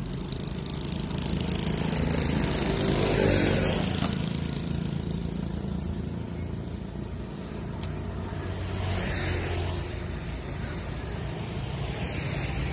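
Road traffic going past: one vehicle swells up and fades away about two to four seconds in, and another passes about nine seconds in, over a steady low traffic rumble.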